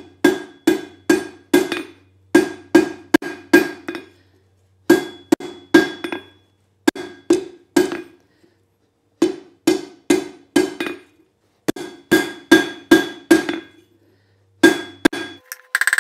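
Hand hammer striking hot half-inch round steel bar on an anvil, rounding it from octagon to round: ringing blows about two a second, in sets of four or five with short pauses between.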